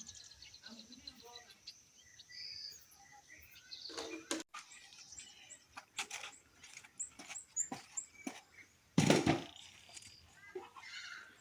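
Small birds chirping in short high calls, among scattered light clicks and knocks, with one loud sudden clatter about nine seconds in.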